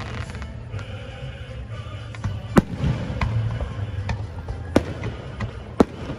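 Fireworks display: a string of sharp bangs from aerial shells bursting, the loudest about two and a half, five and six seconds in, over a steady low rumble. Music plays underneath.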